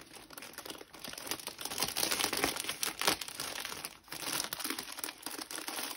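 Plastic postal mailer bag crinkling and rustling, irregular and continuous, as it is handled and a knitted plush jumpsuit is packed into it.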